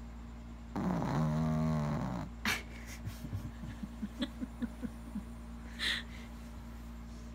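Small shaggy dog asleep, snoring and wheezing: one long drawn-out snore about a second in, then a run of short snuffling breaths and a sharp sniff near the end.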